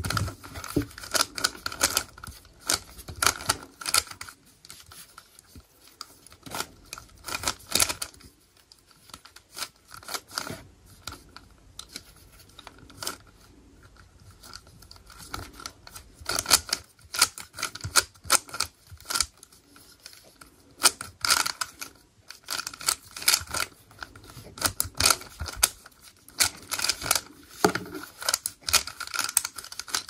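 Plastic layers of a stickerless 3x3 speed cube clicking as they are turned in quick runs of moves while the cube is being solved, with short pauses between runs and a longer quieter spell near the middle.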